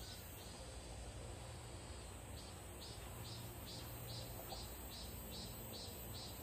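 Insects chirping outdoors in an even rhythm of about three pulses a second, with a pause from about half a second in until about two seconds in, over a steady high-pitched insect drone.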